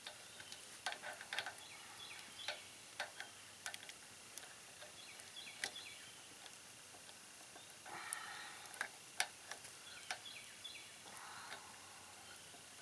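A Leatherman multitool's hook-type can opener working its way around the rim of a hot can, giving light, irregular metal clicks about a second apart.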